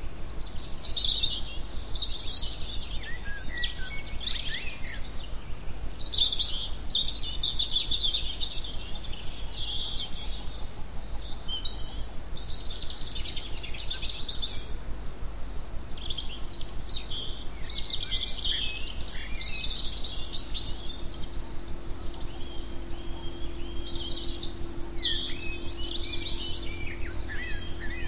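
Several songbirds singing and chirping at once, full of short chirps and fast trills of rapidly repeated notes, over a steady low hum.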